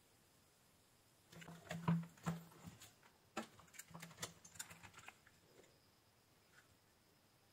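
A quick run of small clicks and knocks from handling bench gear: test probes set down and a USB tester unplugged from a bare phone-charger circuit board. The sounds are loudest about two seconds in and die away after about five seconds.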